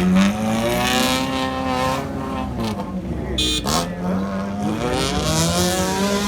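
Engine of an off-road 4x4 revving hard, its pitch rising and falling several times as it works through the terrain, with a brief sharp noise about three and a half seconds in.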